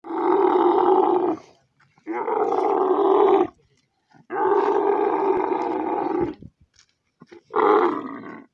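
Dromedary camel bellowing, couched with its legs hobbled while men hold it down: four long, loud calls of one to two seconds each with short gaps between, the last one fading near the end.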